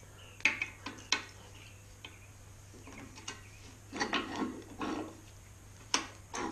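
Hand tools and metal parts clinking against an engine block on an engine stand: a few sharp clicks, then a longer run of clattering about four seconds in, and another click near the end.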